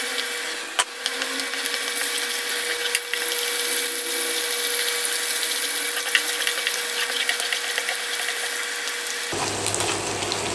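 Sugar and chopped orange pieces sizzling and bubbling steadily in hot oil in a non-stick frying pan, stirred with a wooden spatula that knocks against the pan a few times. The sugar is melting into a bubbling syrup.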